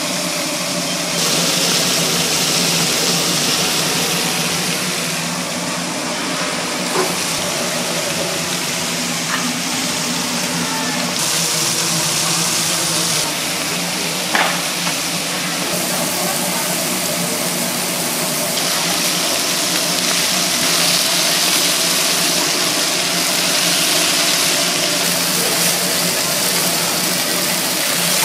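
Fish sizzling as it grills, over a steady low hum, with a few light clicks; the sharpest comes about halfway through.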